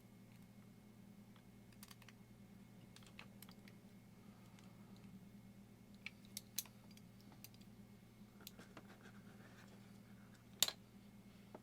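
Scattered small clicks and taps from handling a diecast car and its small parts, with one sharper click near the end, over a faint steady hum.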